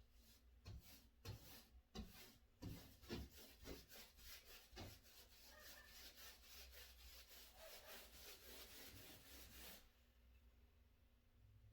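Paintbrush strokes brushing paint onto a textured wall, faint and rubbing, irregular at first and then quick and even at about four strokes a second, stopping abruptly shortly before the end.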